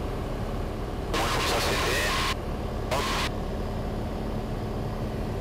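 Cessna 182's piston engine and propeller droning steadily, heard from inside the cockpit, with a steady low tone. About a second in a brighter hiss joins for just over a second, then returns briefly near the middle.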